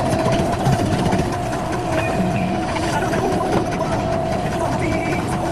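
Heavy diesel machinery engine running steadily under work, with a steady whine over its clatter.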